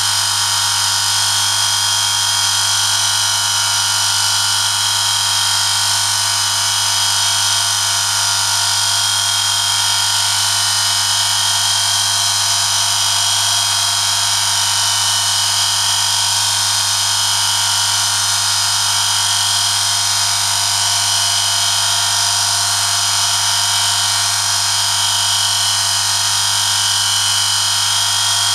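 Electric motor of an oil friction-test rig running steadily, turning a steel part against a test sample pressed on it by a 1 kg lever load in engine oil: a constant hum with a steady high whine.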